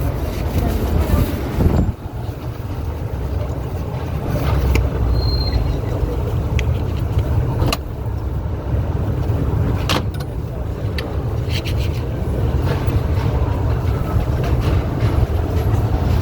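Busy city street: a steady low rumble of traffic with voices of passers-by and a few brief sharp knocks.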